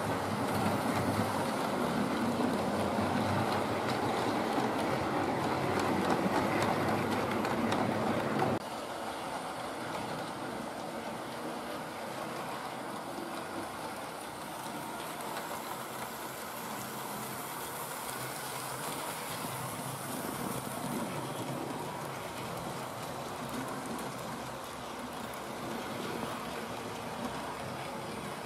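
OO-gauge model steam locomotives running on the layout's track: a steady whirr of the small electric motors with wheels rattling over the rails. It is louder at first and drops suddenly to a quieter level about eight seconds in.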